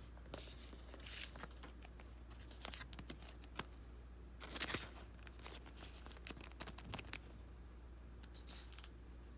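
Trading card pack wrapper and cards being handled, with short crinkling, tearing rustles and small clicks. The rustles come in brief bursts: about a second in, around the middle, and a run of them a little later.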